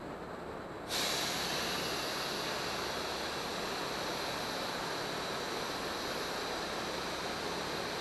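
Steady rush of air from an air pump inflating an inflatable tent; about a second in it turns suddenly louder with a hiss added, then holds steady.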